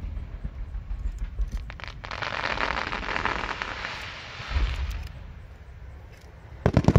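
Aerial fireworks display: dull low thumps, then a dense hiss for about three seconds with a single dull thump near its end, and a quick cluster of sharp, loud bangs near the end as several shells burst.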